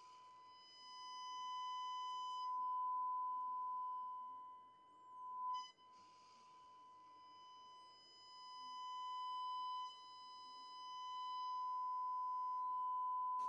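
A Braun SK25 tube radio's loudspeaker playing the steady test tone from a signal generator received on FM, one unchanging pitch that swells and fades in level as the radio is aligned, with brief bursts of hiss near the start and again about six seconds in.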